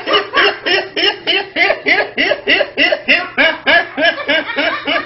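A young man laughing hard in a long, even run of short high-pitched 'ha' pulses, about four or five a second.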